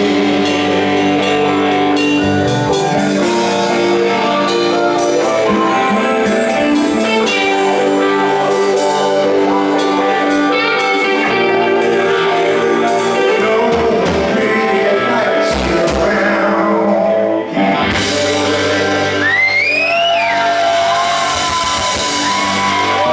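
Rock band playing live: electric guitar, bass guitar, keyboards and drum kit under a singer's vocals. About 17 seconds in the sound dips for a moment, then gives way to long held notes with high notes sliding upward.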